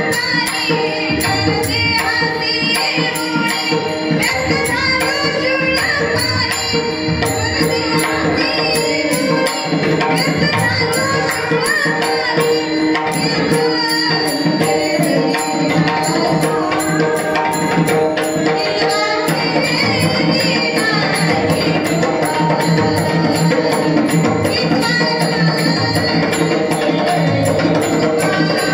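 Devotional Marathi kirtan: a sung melody with drum and a fast, steady beat of small jingling percussion.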